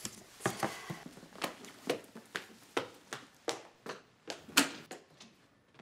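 Brisk footsteps on a hard floor, about two to three sharp steps a second, walking away.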